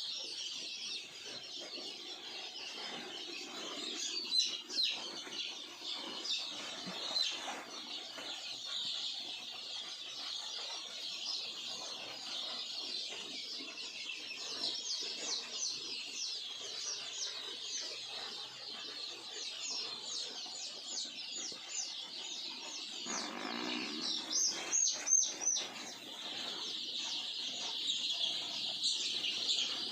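A flock of poultry chickens calling together: a dense, continuous chorus of high-pitched peeps and chirps, with a louder flurry of calls a little before the end.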